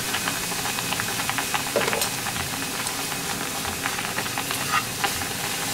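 Spent bonito flakes in a soy and mirin glaze sizzling in a frying pan as the liquid cooks nearly dry: a steady hiss with many small pops, while wooden chopsticks stir the mixture against the pan.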